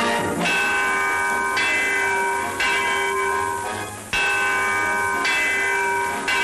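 A bell struck six times, about once a second, each stroke ringing on until the next.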